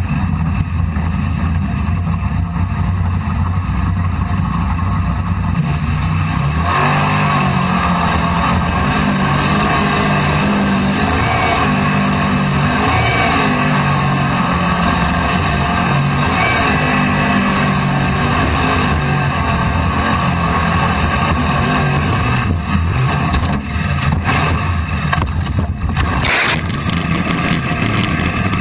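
V8 jet sprint boat engine running hard, its pitch rising and falling as it is revved and backed off through the turns. Near the end come several knocks and a loud crash as the boat leaves the water and hits the bank.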